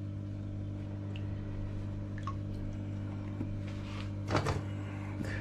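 Wet pieces of boiled pork fat being lifted out of brine and set into an enamel pot by hand: faint squishes and light ticks over a steady low electrical hum, with a brief louder sound about four seconds in.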